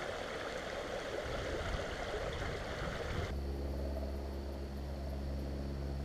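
Creek water running over rocks, a steady rushing hiss. About three seconds in it cuts off abruptly and is replaced by a low, steady hum.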